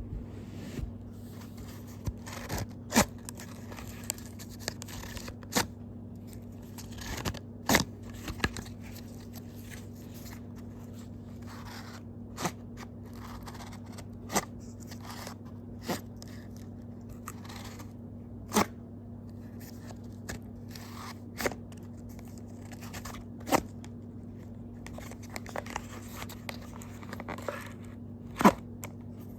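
Scissors cutting cardboard: sharp snips and crunches every one to three seconds, with some scraping in between, over a steady low hum.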